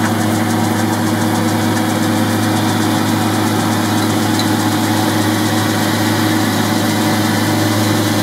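Boxford lathe's belt drive unit running steadily at speed: electric motor, multi-step pulleys on freshly replaced bearings and a new V-belt, with a steady low hum over mechanical running noise. It is being test-run after the bearing and belt change, and the belt is not yet worn in.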